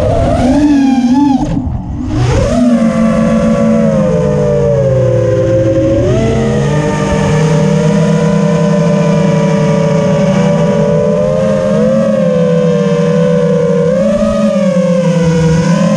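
Brushless motors and propellers of a 5-inch FPV quadcopter whining, the pitch sliding up and down with the throttle. The sound drops away briefly about two seconds in, then climbs back and holds a fairly steady whine with small swells.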